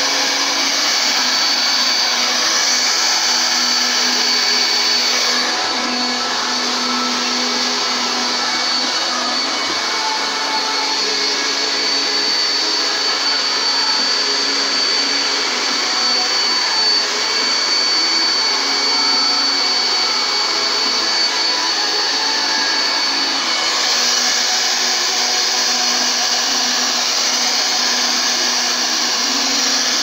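Handheld hair dryer running steadily, blowing air onto wet paint on a canvas, with a thin high whine over the rush of air. The hiss dulls about five seconds in and brightens again near the end.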